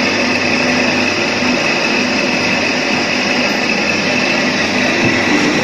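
Screw-press fruit juicer running steadily, its motor and gear reducer turning the spiral screw as it presses fruit into juice. It gives a steady hum with a high hiss over it.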